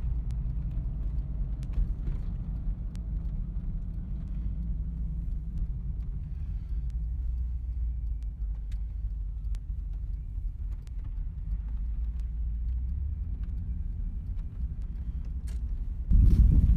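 Steady low engine and road rumble inside a pickup truck's cab while driving and hauling a loaded stock trailer, with a few faint ticks. Near the end it gives way abruptly to louder, gusty noise.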